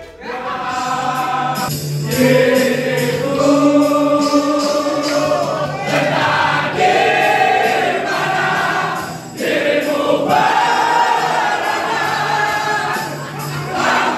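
Many voices singing a song together as a group, in long held notes with short breaks between phrases.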